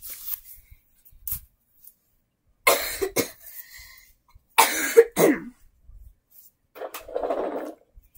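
A person coughing in two short bouts about two seconds apart, followed by a softer breathy sound.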